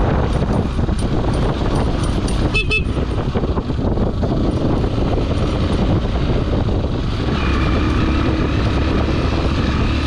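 Vr 150h motorcycle running along a rough dirt track, its engine note mixed with wind and the rattle of the bike over the ruts. A short high beep sounds about two and a half seconds in. From about seven and a half seconds in, the engine settles into a steadier note.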